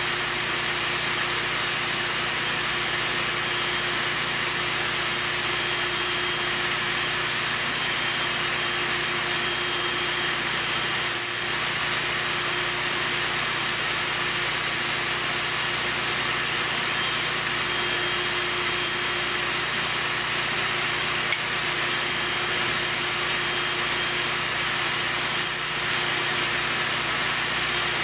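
Bee vacuum running steadily as honey bees are sucked out of the hive in the wall.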